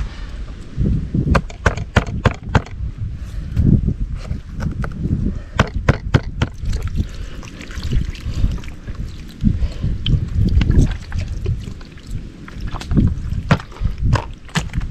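Water from a plastic jug poured and sloshing over a butterflied peacock bass on a plastic cutting board, mixed with sharp clicks and knocks of the fish and knife being handled on the board. Wind buffets the microphone throughout in gusts.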